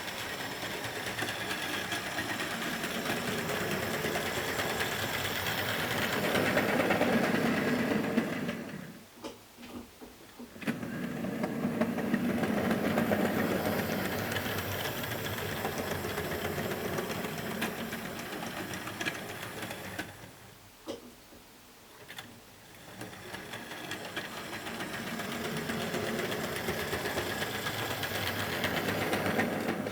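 HO/OO-scale model train running on track: a small electric motor whirring with the wheels rattling over the rails. It swells and fades as the train comes near and goes away, and twice drops almost out for a second or two, with a few clicks in the gaps.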